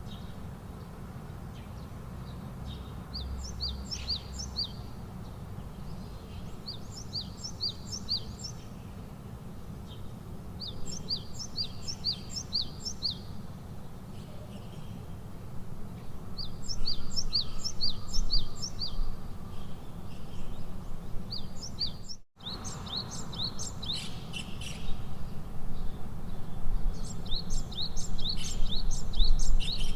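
A songbird singing the same short phrase over and over, each phrase a quick run of high chirped notes, about six phrases in all and louder in the second half. A steady low background noise runs underneath, broken by a brief dropout a little after twenty seconds in.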